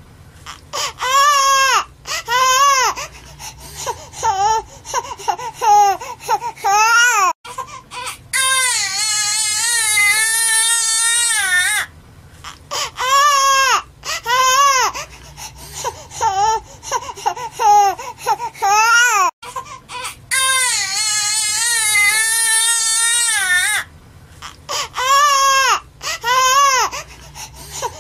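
Baby crying hard: long, wavering wails broken by short, gasping cries and catches of breath. The same stretch of crying repeats about every twelve seconds.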